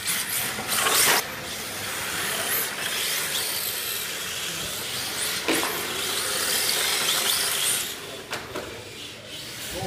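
Two RC drift cars sliding across polished concrete, their hard drift tyres making a continuous scraping hiss, louder as they sweep past about a second in and again around five and a half seconds.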